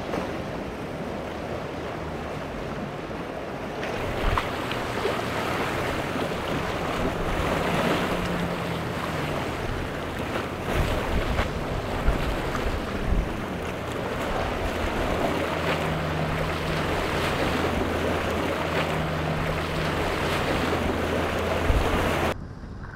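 Outboard motors droning steadily under the rush of choppy surf, with wind gusting on the microphone. The sound drops off abruptly near the end.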